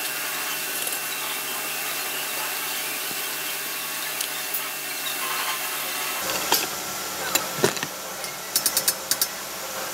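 Electric arc welding on a steel frame: a steady crackling hiss for about six seconds, then it stops. Several sharp clicks and knocks of metal follow near the end.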